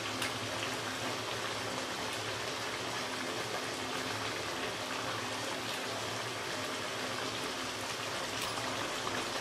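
Chicken and whole tomatoes simmering in water and oil in a karahi, the liquid bubbling with a steady hiss.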